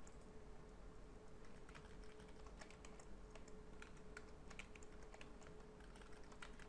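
Faint, irregular clicking of computer keyboard keys being typed, with a thin steady hum underneath.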